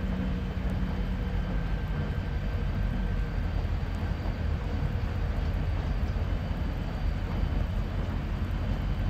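Diesel locomotive and its passenger train running across a steel girder railway bridge, heard from a distance as a steady low rumble.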